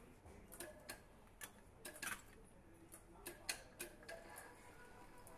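Faint, irregular light clicks and taps of hand tools and metal engine parts during hand assembly of an engine, about ten in all, the sharpest about three and a half seconds in, over low room noise.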